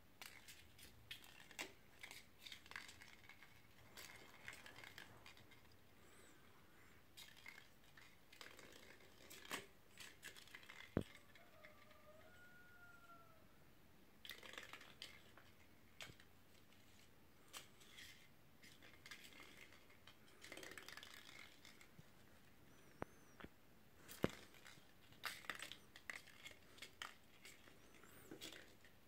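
Kittens scrabbling and skittering on a hard marble floor while batting a crumpled aluminium-foil ball: scattered light clicks, taps and scuffles in irregular flurries, with a couple of sharper knocks.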